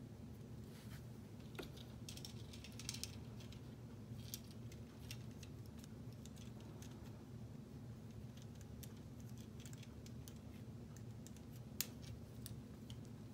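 Plastic K'NEX pieces being handled and clipped together: scattered light clicks and rattles, with a sharper snap now and then, over a steady low hum.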